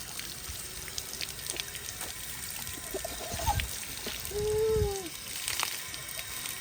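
Water from an outdoor beach shower pouring and trickling as someone rinses off. About four seconds in there is a short voiced sound lasting under a second.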